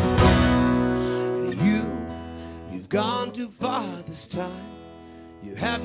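Live folk-rock band with acoustic guitar, banjo and cello: the loud full-band instrumental break ends on one last hit just after the start, then drops to a quieter passage of guitar strumming with a voice singing softly.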